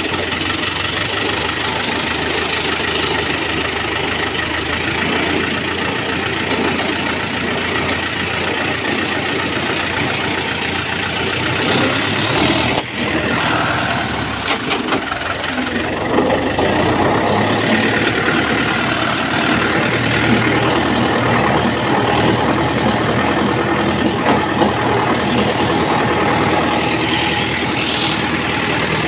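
Fiat tractor's diesel engine running steadily under way, heard from the driver's seat, with a brief dip in loudness about 13 seconds in.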